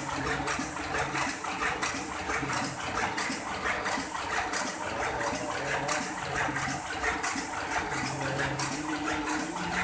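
Heidelberg GTO sheet-fed offset press running while it prints. Its sheet feed and delivery make a steady, rhythmic clatter over the hum of its drive.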